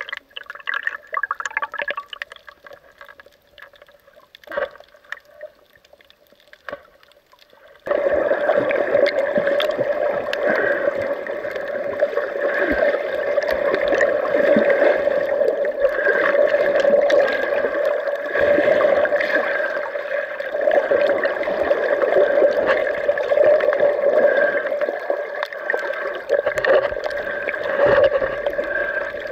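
Underwater sound heard through an action camera's waterproof housing: faint scattered crackles at first, then about eight seconds in a sudden switch to a loud, steady muffled rush of water with a hum in it.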